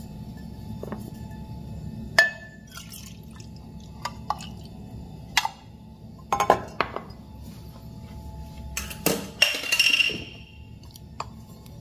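Stainless steel milk pitcher and small espresso glass handled on a stone countertop: a scatter of sharp clinks and knocks, with a louder cluster and a brief slosh of milk as the pitcher is set down near the end, over a low steady hum.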